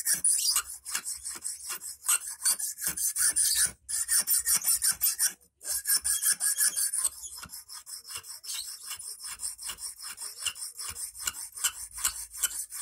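Hand file scraping back and forth across the end of a 2.5 mm rustproof wire clamped in a wooden block, shaping an eel hook. Quick even strokes, about five a second, with two short breaks a few seconds in and lighter strokes in the second half.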